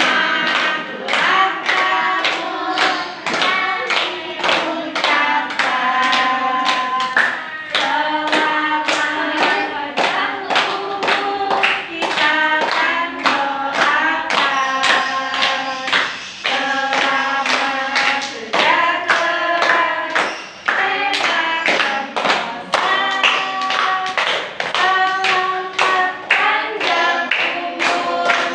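A small group of women and children singing a birthday song together, clapping along in a steady beat of about two claps a second.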